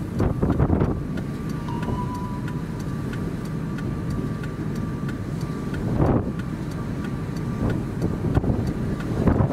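Strong wind buffeting the microphone: a dense low rumble that swells in gusts about half a second in and again about six seconds in, with a faint steady tone underneath for much of it.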